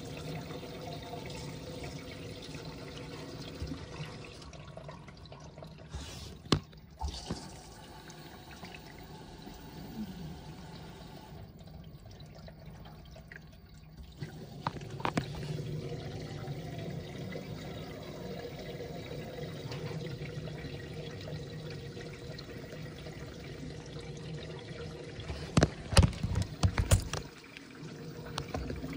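Water running and sloshing in a front-loading washer-dryer, with a steady machine hum and a few sharp knocks at about a quarter of the way in and again near the end.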